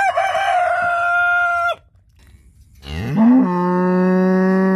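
A rooster crowing, its long held note cutting off about a second and a half in. After a short pause a cow moos, one long low call that rises in pitch at the start and then holds steady.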